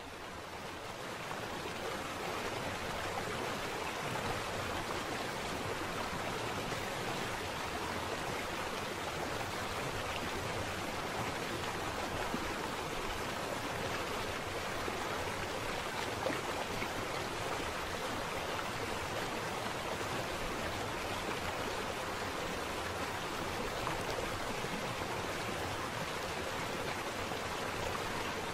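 Shallow river water running over a stony bed in a steady, even rush.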